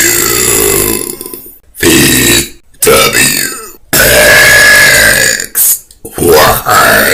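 A run of about five loud belches from young women, one after another with short gaps; the longest lasts about a second and a half, around the middle.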